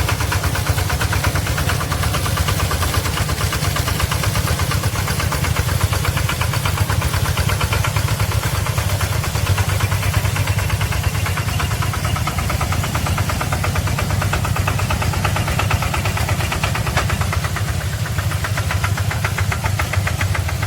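Engine of a homemade tracked rice-field sprayer running steadily, as a fast, even pulsing chug.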